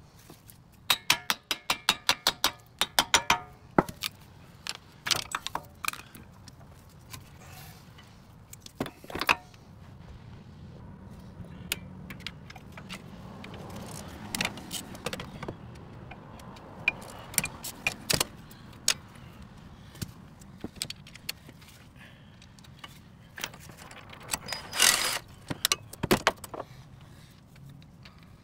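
Metal hand tools at work on a car's front CV axle: a quick, even run of sharp clicks in the first few seconds, then scattered metallic clinks and knocks, with a louder clanking cluster near the end.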